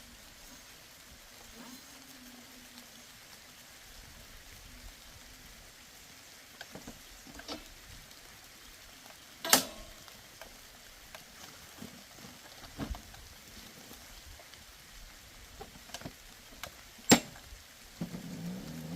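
Scattered sharp clicks and knocks over a quiet background, the two loudest about ten seconds in and near the end; a low pitched hum starts just before the end.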